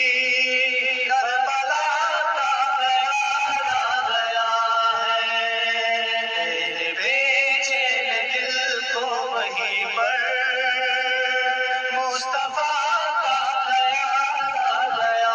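Background music: a man singing an Urdu religious song in long, wavering held notes, without clear words in this stretch.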